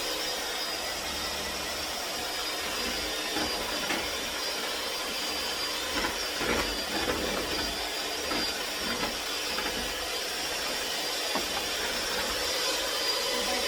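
Electric mixer running steadily on medium speed, beating a no-bake cheesecake filling, with a few light knocks of the beaters against the bowl.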